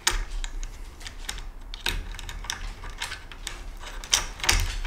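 A metal washer and acorn nut clicking against a bolt and a steel tube as they are fitted and screwed on by hand: a string of small, irregular clicks and taps, a few of them sharper about two seconds in and near the end.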